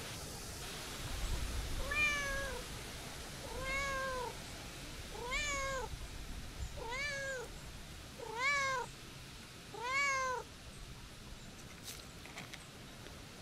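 Calico cat meowing six times, about one and a half seconds apart, each meow rising and then falling in pitch.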